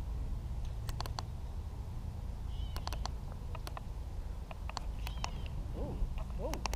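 A few short bird chirps and a mewing call near the end, with scattered sharp clicks over a low steady rumble.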